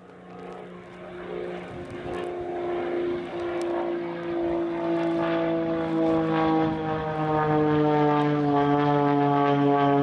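Extra 330 aerobatic plane's propeller engine droning, growing steadily louder as it approaches, its pitch slowly sinking.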